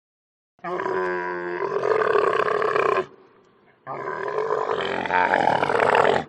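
Camel bellowing in two long calls of about two and a half seconds each, with a short pause between.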